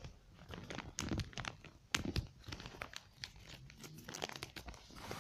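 A sheet of paper rustling and crinkling as it is folded and creased by hand, in scattered soft crackles.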